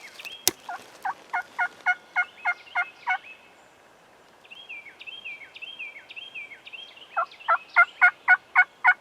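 Wild turkey yelping: two runs of seven or eight loud notes at about three a second, one near the start and one near the end. A songbird chirps again and again behind them, and there is a sharp click about half a second in.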